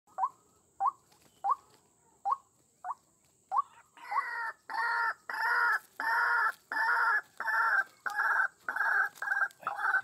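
White-breasted waterhen calling: first a run of short sharp notes about every two-thirds of a second, then from about four seconds in, louder, longer harsh calls repeated about three times every two seconds.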